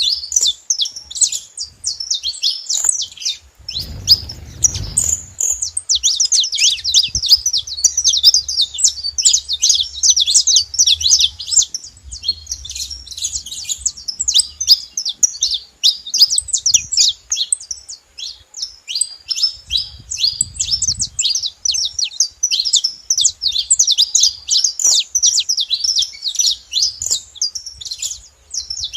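Several saffron finches chirping together in a dense, continuous chatter of quick high notes. A brief low rumble comes about four seconds in.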